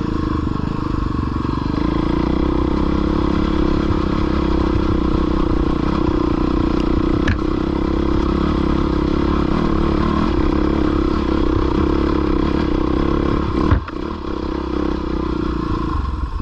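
Dirt bike engine running steadily under load while riding over rough, rocky ground. A sharp clack comes about seven seconds in, and a louder knock about three seconds before the end, where the engine briefly drops.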